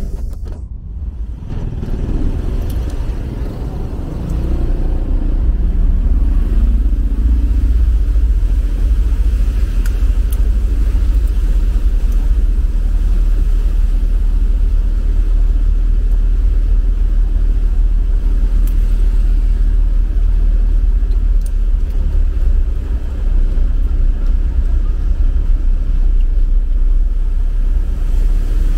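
Steady low rumble of an Isuzu Traviz small truck driving, heard from inside the cab, with road noise over it. The rumble grows louder about four seconds in and then holds.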